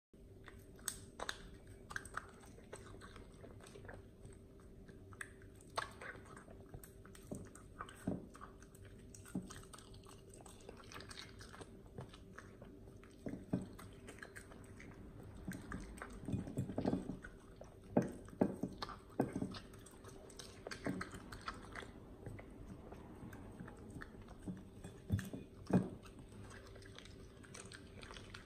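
Miniature dachshund eating raw venison and sprats from a ceramic bowl: wet chewing, biting and licking, with irregular sharp clicks that come thicker and louder in the second half.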